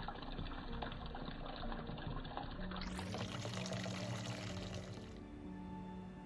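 Tap water pouring and splashing into a stainless steel bowl of anchovies in a sink, with soft background music. The splashing stops about five seconds in.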